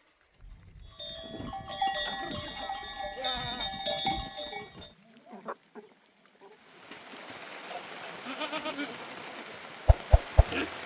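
Livestock bells on a flock of sheep and goats clanking and ringing, with goats bleating. A few sharp knocks near the end.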